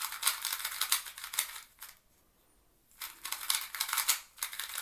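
YongJun MGC 2x2 magnetic speed cube being turned fast: rapid plastic clacking and scraping of the layers as they snap into place, stopping for about a second midway and then starting again. The cube is unlubricated and a bit dry, in need of setup.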